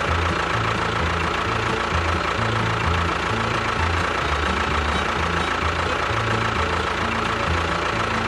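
Steady engine-like running noise with a thin, constant high whine, over background music with a stepping bass line.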